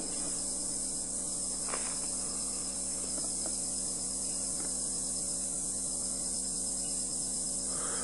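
A steady, high-pitched chorus of tropical insects.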